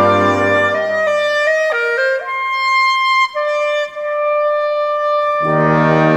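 Solo clarinet playing a short line of stepping notes as the orchestra drops away, then holding a high note and a long lower note. About five seconds in, the full orchestra comes back in underneath.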